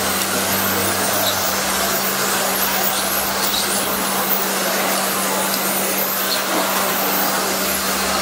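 Radio-controlled touring cars racing around an asphalt circuit: a steady hiss of motors and tyres, with short rising and falling high whines as cars pass. A low steady hum runs underneath.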